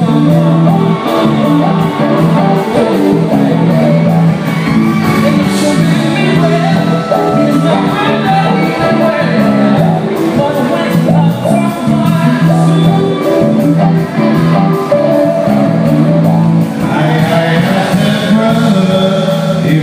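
Live band playing a steady groove while a man sings into a microphone, heard loud and full in a large hall.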